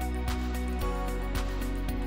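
Background music: sustained tones over a steady beat of nearly two strikes a second.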